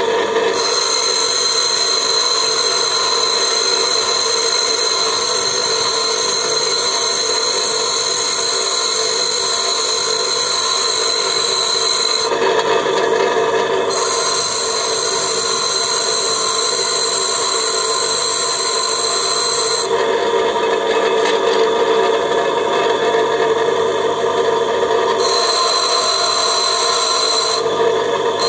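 Bench grinder running steadily while a high-speed-steel lathe tool bit is pressed against the abrasive wheel and ground into a 60-degree thread-cutting tool. The sound changes in stretches, around the middle and again near the end, as the bit's contact with the wheel shifts.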